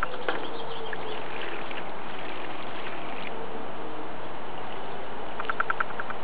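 A small bird calls a quick run of about six short, evenly repeated notes near the end, over a steady rushing noise.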